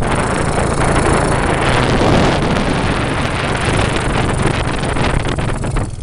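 Heavy wind buffeting the microphone over the steady low drone of a quad (ATV) engine while riding.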